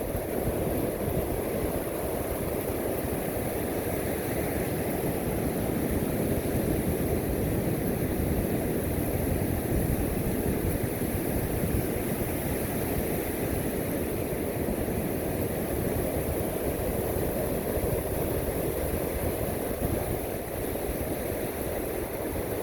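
Steady ocean surf and wind, with a low rumble of wind buffeting the microphone.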